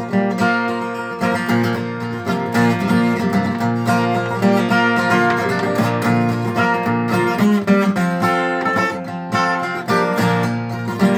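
Acoustic guitar strumming chords in a steady rhythm: the instrumental introduction to a country-gospel song, before the vocals come in.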